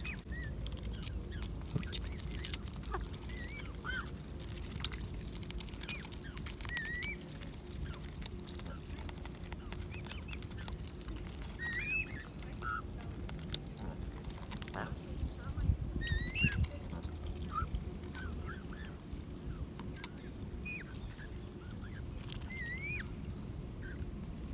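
Canada geese giving short, high, squeaky calls every second or two as they crowd in and nibble at a hand, with occasional sharp clicks and small splashes, over a steady low outdoor rumble.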